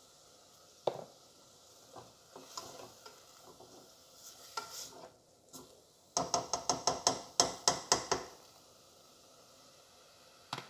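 Plastic slotted spatula stirring sautéed corn in an aluminum pot. There is a single knock about a second in and some soft scraping. Past the halfway point comes a fast run of about ten knocks against the pot, roughly five a second, lasting about two seconds.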